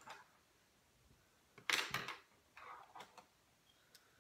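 Small handling noises of a plastic mechanical pencil being taken apart for its spring: a few short clicks and rustles, the loudest about two seconds in.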